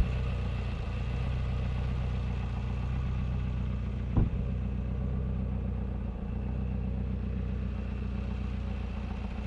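An engine idling steadily, a low even hum with a single brief knock about four seconds in.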